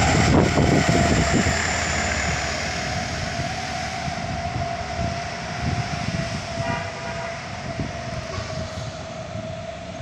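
A heavy vehicle's engine and tyres going past on the road, the steady noise fading away over several seconds as it drives off.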